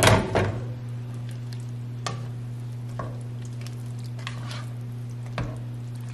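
Slotted spatula stirring beans into a thick chili in a metal pot, with a short clatter at the start and a few soft scrapes against the pot after that, over a faint sizzle and a steady low hum.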